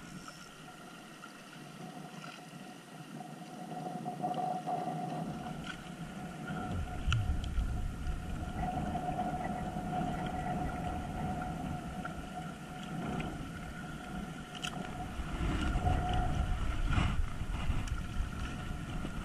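Steady motor hum of a distant boat over wind rumbling on the microphone, with a small splash near the end.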